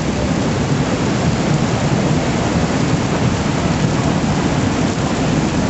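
Steady rush of muddy floodwater from an overflowing river pouring across open ground, mixed with heavy rain; a loud, even noise with a deep rumble and no breaks.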